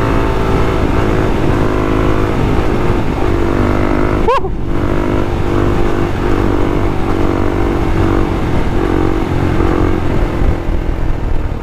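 Suzuki DR-Z400SM single-cylinder four-stroke engine running under throttle at riding speed, its note wavering up and down as the throttle is worked, over a low wind rumble. About four seconds in the revs rise sharply and briefly cut off, like a gear change or clutch pull, then the engine carries on.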